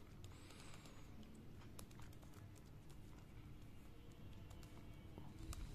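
Faint, scattered plastic clicks of a Gear Pyramix puzzle being turned by hand, its gear-meshed pieces shifting.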